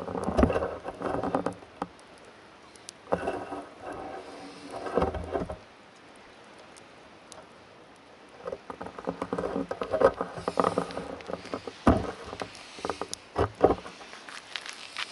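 Footsteps and movement crunching over gravelly ground with twigs, in three bursts separated by short pauses.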